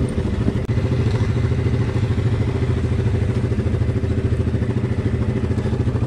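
ATV engine running steadily at low speed with an even, level pulse, with a brief dropout a little over half a second in.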